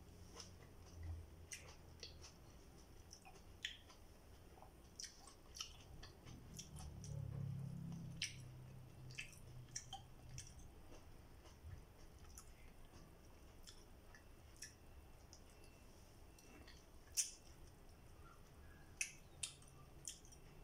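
Faint chewing and lip smacks of someone eating fried fish and rice by hand, with scattered small clicks and taps.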